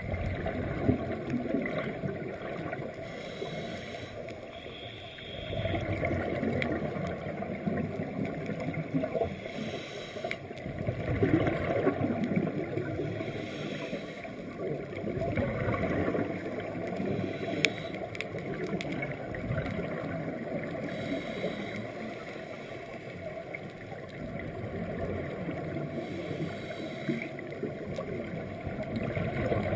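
Scuba divers' exhaled bubbles gurgling, heard underwater through a GoPro housing as a low rumble that swells and fades every few seconds with each breath.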